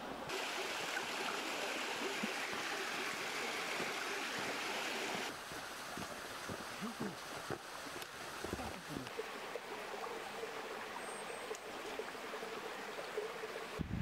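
A mountain stream running over rocks, a steady rush of water. About five seconds in it drops suddenly to a quieter, softer flow.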